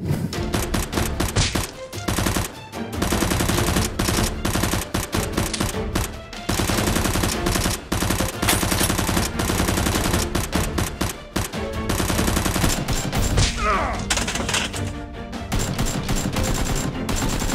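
Rapid automatic gunfire in long, dense bursts with brief gaps: gun sound effects for a blaster shootout. It starts abruptly.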